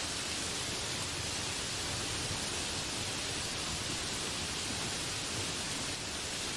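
Heavy rain falling steadily on trees and broad banana leaves, an even, unbroken hiss.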